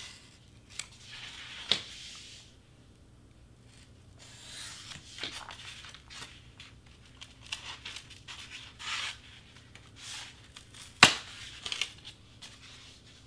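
Foam board being cut and its excess pieces torn and pulled away across a cutting mat, in a run of uneven scraping and tearing sounds. A sharp knock about eleven seconds in is the loudest sound.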